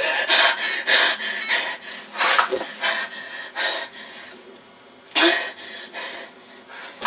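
A boy breathing hard in angry agitation: irregular huffs and gasping breaths, with a couple of short vocal noises, one about two and a half seconds in and a louder one a little past five seconds.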